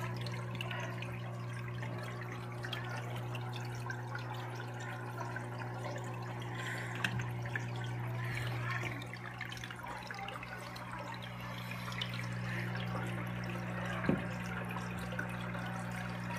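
Aquarium filter running: water trickling and splashing over a steady electric hum, with a couple of light knocks, about seven and fourteen seconds in.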